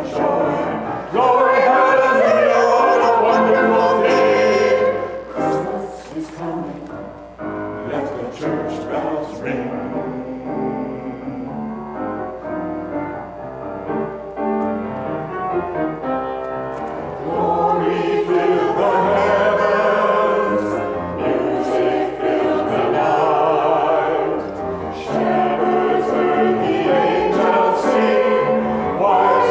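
Small mixed choir of men's and women's voices singing, loud at first, dropping to a quieter passage, then swelling again in the second half.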